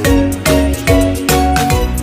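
Upbeat background music with a steady beat and a bright melody.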